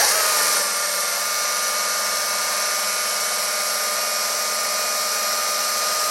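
Chainsaw running at full throttle, cutting through a dirt-covered log: a loud, steady high whine with a hiss of chain and chips. The held, unchanging pitch is the saw under load in the cut.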